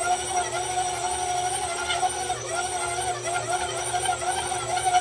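KitchenAid stand mixer's motor running steadily with a dough hook kneading stiff bread dough, a loud whine whose pitch wavers slightly as the dough drags around the bowl.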